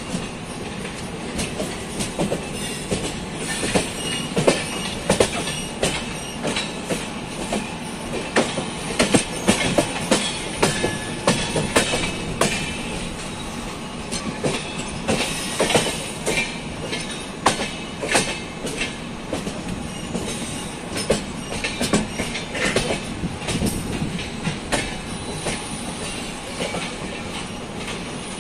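Train wheels running over rail joints and points: a steady rumble broken by many irregular clacks and knocks, busiest through the middle.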